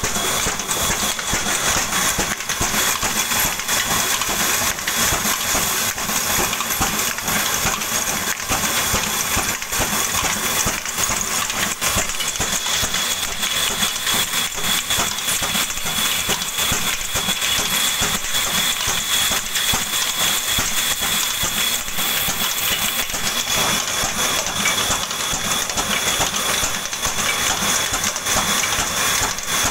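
Ruston Hornsby stationary diesel engine running steadily, driving a flat belt and line-shaft pulleys to a water pump, with a fast, even metallic clatter and a faint steady high whine.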